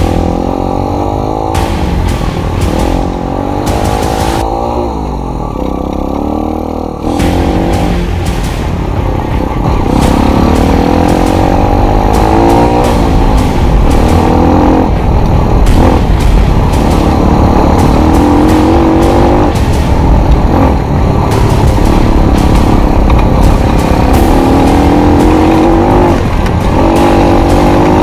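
Dirt bike engine running under a rider, its pitch climbing and dropping back again several times as it accelerates and eases off.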